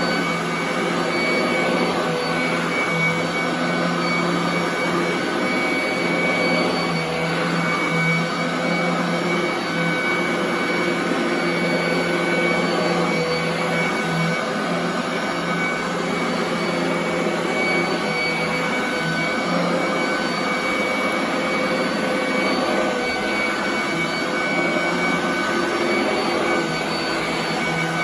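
Royal commercial vacuum cleaner running on carpet: a steady motor whine with a few fixed tones over rushing air.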